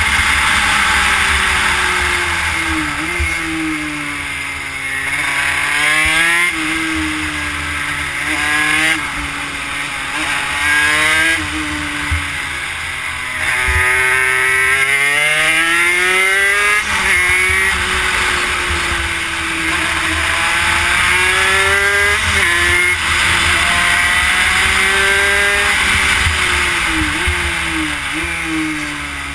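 Honda CR80 two-stroke single-cylinder engine in a Yamaha YSR50 minibike at race pace, revving hard on the straights and dropping in pitch when the throttle is rolled off for corners, several times over.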